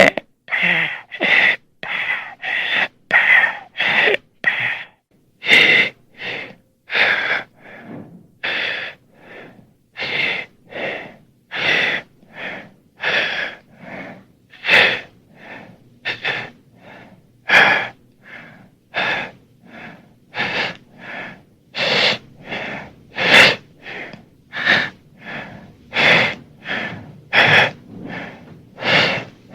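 Horror creature breathing sound effect: rasping, wheezing breaths in and out, about three every two seconds, a creature gasping and struggling for air.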